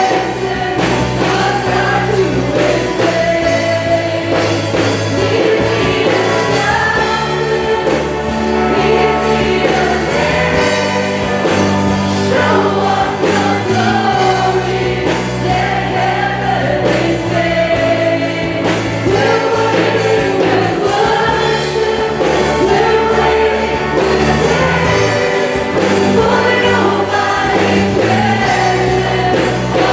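Live gospel worship song: several women sing together into microphones over an amplified band that includes electric guitar, continuing steadily throughout.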